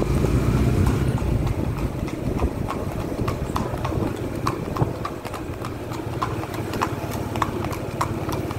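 A Thoroughbred horse's hooves clip-clopping on a paved road in a steady rhythm of about two to three strikes a second. Under them runs the low, steady rumble of the following motorcycle's engine.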